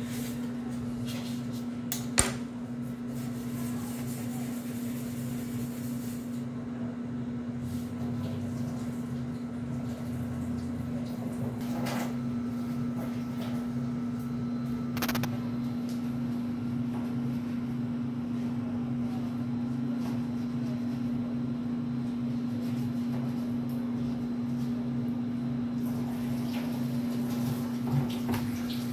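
A steady machine hum with a throbbing lower tone beneath it. Over it come a few light knocks and clicks from dough being handled on a countertop and baking tray; the sharpest is a click about two seconds in.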